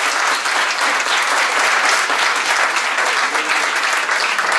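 Large seated audience applauding steadily.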